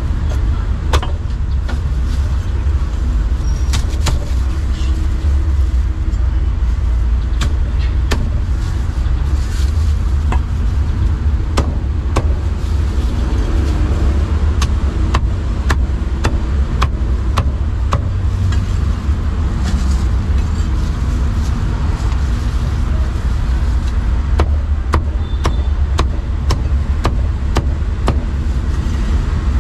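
Heavy cleaver chopping roast duck and roast pork on a thick round wooden chopping block: sharp, irregular knocks, coming faster near the end. Under them runs a steady low rumble.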